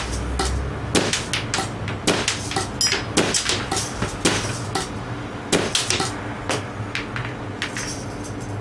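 Homemade semi-automatic airsoft gun with a copper-pipe barrel firing a string of shots, sharp pops about two a second that thin out near the end, over a steady low hum.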